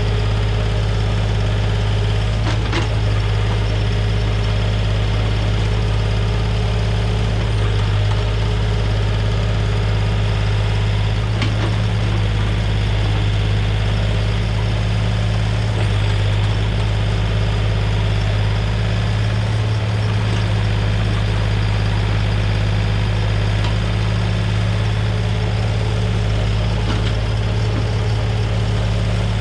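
Komatsu mini excavator's diesel engine running steadily, with a few faint clicks.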